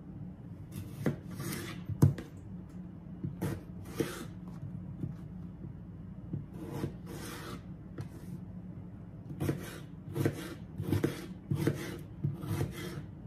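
Knife dicing raw potatoes on a cutting board: about a dozen short slicing strokes and blade taps against the board, in irregular groups with brief pauses.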